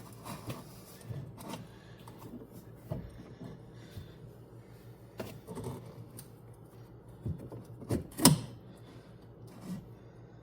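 Scattered light clicks and knocks of hand work with tools and parts, with one sharper knock about eight seconds in, over a steady low hum.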